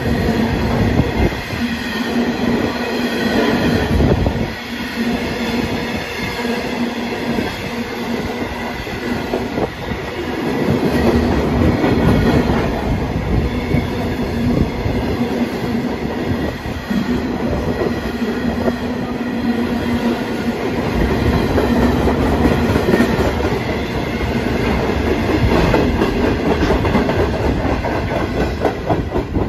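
Freight train of mostly empty container flat wagons rolling past close by, wheels clattering irregularly on the rails. A steady tone runs under the clatter and breaks off now and then.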